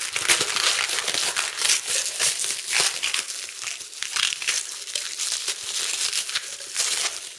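Clear plastic packaging wrap crinkling and crackling as it is pulled and peeled off a round tin of airgun pellets by hand, in a dense, continuous run of sharp crackles.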